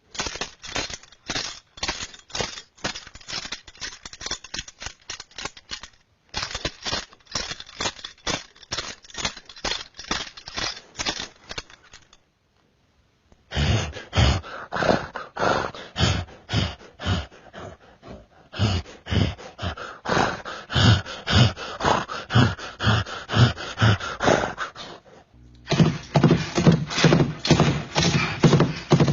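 Foley sound effects performed in several short takes: quick runs of sharp taps and clicks, then after a short silence a rhythmic series of heavier thuds, with busier impacts over a low steady tone near the end.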